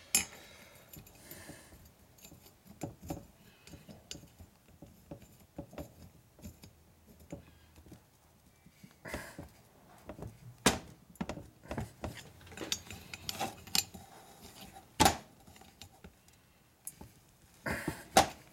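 Small steel hand tool clicking, tapping and scraping against a Harley Evolution aluminium cylinder head while prying at a valve guide seal: irregular sharp metallic clicks, with a few louder ones in the second half.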